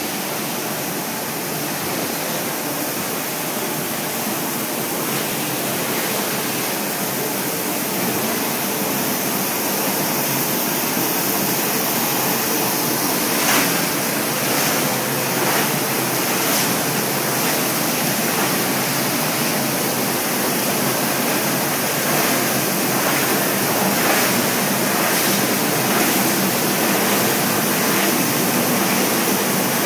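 PLGR-150 EPS foam granulator running with a steady, loud rushing noise. From about halfway through, short cracks break through as sheets of foam are fed in and crushed.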